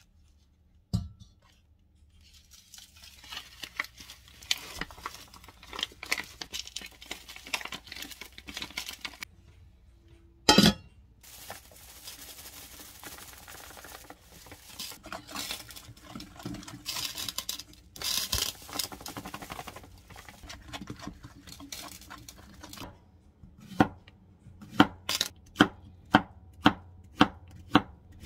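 Kitchen prep handling and rustling, then a kitchen knife chopping zucchini on a wooden cutting board in steady strokes, about two a second, for the last few seconds.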